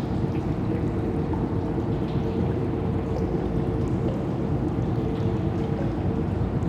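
Abandoned-factory ambience: a steady low rumbling drone with a faint, unbroken hum tone riding over it, and scattered faint ticks and drips.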